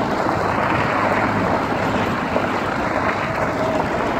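Vehicle driving over a desert dirt track: a steady rush of road and wind noise over the engine's low hum.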